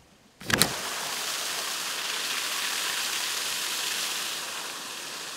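A sharp knock about half a second in, then a steady rushing hiss, like running water, easing slightly near the end.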